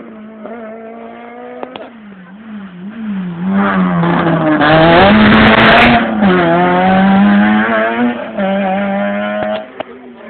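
Rally car engine working hard through a corner on a special stage, its pitch dipping and climbing as the driver lifts, brakes and gets back on the throttle. About four seconds in the car passes close by in a loud rush of engine and tyre noise, the loudest part, then the engine holds high revs as it pulls away.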